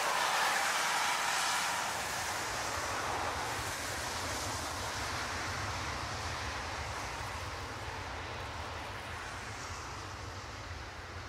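Boeing 767 airliner's jet engines running at power as it rolls past on a wet runway: a loud rushing roar that slowly fades, with a steady low rumble underneath from about two seconds in.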